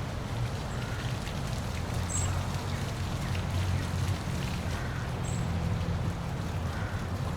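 Park waterfall splashing steadily: a constant rushing of falling water over a strong low rumble.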